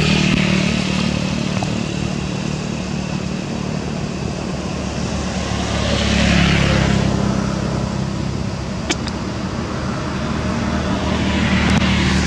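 Motor-vehicle engines running with passing traffic: a steady low engine hum, swelling twice as vehicles go by, about six seconds in and again near the end, with one sharp click just before nine seconds.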